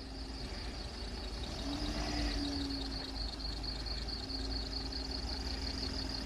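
Recovery truck's diesel engine running at low revs as it tows a box van slowly up a lane. The revs rise briefly about two seconds in, then settle.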